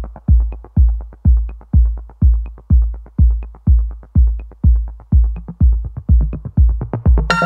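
Electronic background music: a steady kick-drum beat about two beats a second with light ticks between, joined by sustained synth chords near the end.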